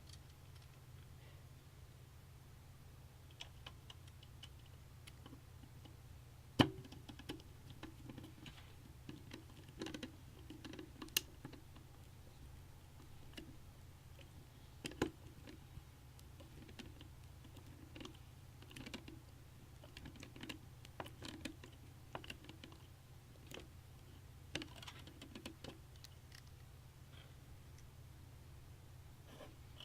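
Faint, irregular clicks and taps of hands handling computer parts and screws in a PC case, the sharpest about six and a half seconds in, over a low steady hum.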